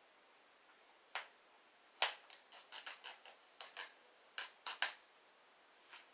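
Plastic DVD case and its wrapping being handled and pried at while it is opened: a run of sharp plastic clicks and snaps. There is one about a second in, a quick cluster over the next few seconds, and one more near the end.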